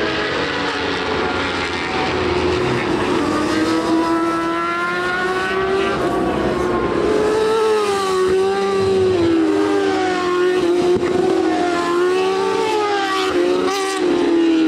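Racing motorcycle engines running at high revs as bikes pass on track, their pitch rising and falling repeatedly as riders open and close the throttle.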